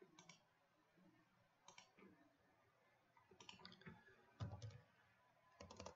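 Faint, scattered clicks of a computer mouse and keyboard, coming a few at a time with pauses between.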